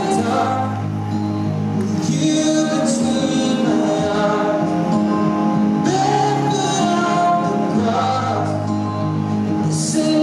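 Figure skating program music: a song with singing over sustained instrumental chords and a held bass, playing steadily.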